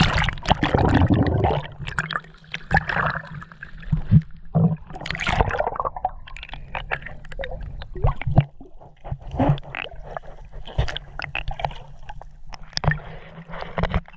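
Seawater splashing and gurgling, with irregular sloshes and knocks.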